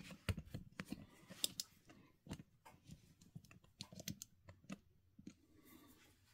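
Faint, irregular clicks and taps of small hand-handling at a workbench, busiest in the first few seconds and thinning out toward the end.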